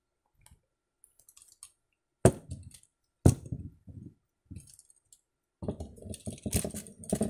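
Clicks and light knocks of a small die-cast toy monster truck being turned over in the hands. There are two sharper knocks about two and three seconds in, a few faint clicks after them, and then a quick flurry of small clicks near the end.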